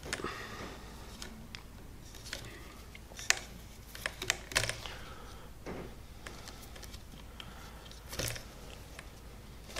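Hand saddle stitching of leather: steel needles ticking against each other and the leather, and thread pulled through the stitching holes in about five short swishes between irregular light clicks.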